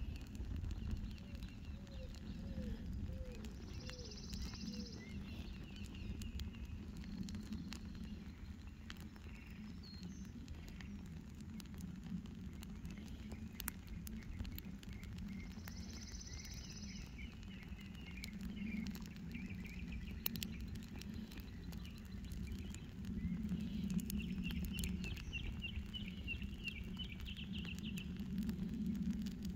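Welcome mat burning on a charred stump, with scattered sharp crackles and pops from the fire. Birds chirp and trill in the background, most clearly near the end.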